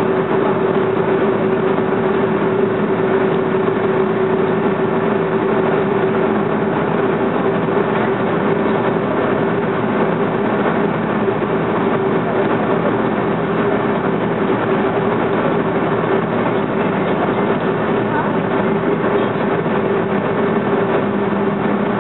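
Boeing 737-300's CFM56 jet engines running at taxi power, heard inside the cabin: a steady hum with one constant tone running through it.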